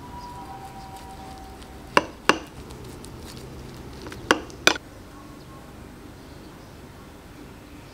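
Steel knife cutting a Spanish potato omelette and striking the ceramic plate under it: two pairs of sharp clinks, about two seconds apart.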